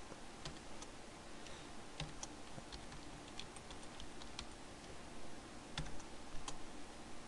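Computer keyboard keys clicking as someone types slowly, a few irregular keystrokes at a time, over a faint steady hiss.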